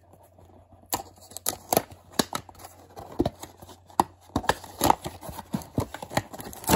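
Small cardboard blind box being opened by hand: irregular crackling, tearing and rustling of the card as the flap is prised up and pulled back, starting about a second in.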